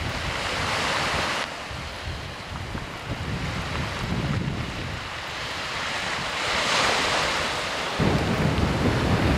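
Sea waves breaking onto a rocky shore, the surf hissing up twice: about a second in and again around six to seven seconds. Wind buffets the microphone throughout, heaviest near the end.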